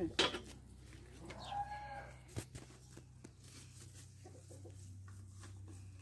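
A rooster crowing once, a single arched call about a second and a half in, with a couple of sharp knocks around it.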